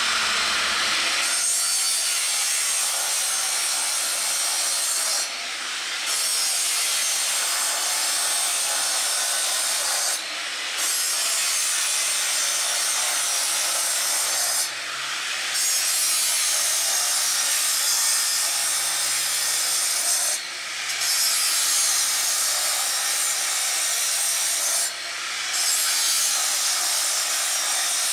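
A saw cutting through PVC piping, running steadily with brief breaks about every five seconds.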